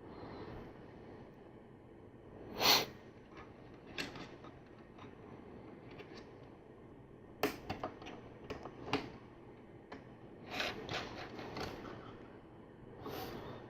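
Small plastic LEGO pieces being handled and clicked together: droid arm clips snapped onto flex tubes, with scattered sharp clicks, a quick run of clicks about halfway through, and short rustles of pieces being moved, the loudest a brief rustle early on.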